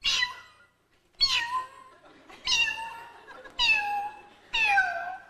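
A woman imitating a kitten calling for its mother: five high mewing cries, about one a second, each falling in pitch.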